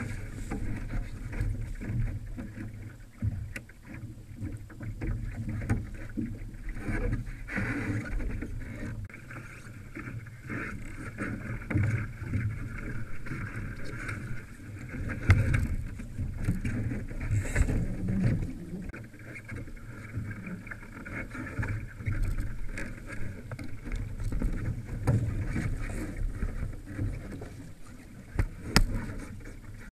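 Laser dinghy under sail: water rushing and splashing along the hull and wind buffeting a deck-mounted camera, in a steady uneven rumble with a few sharp knocks.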